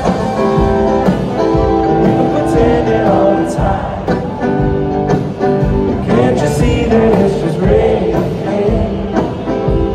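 Live band music with singing: acoustic and electric guitars, drums and accordion playing a relaxed acoustic pop song, heard through the PA from the audience.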